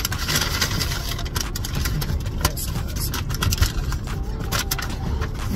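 Rustling and clicking of takeout food containers and utensils being handled, over a steady low rumble inside the car cabin.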